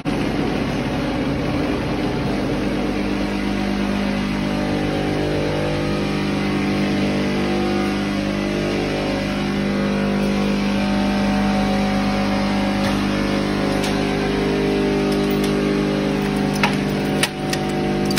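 Scrap-metal conveyor machinery running with a steady hum. Near the end, a few sharp clicks of metal fragments dropping off the belt into a bag.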